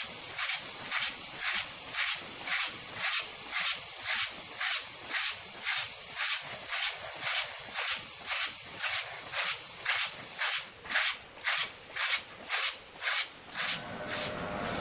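A wood-processing machine making regular hissing strokes, about two a second; they stop shortly before the end.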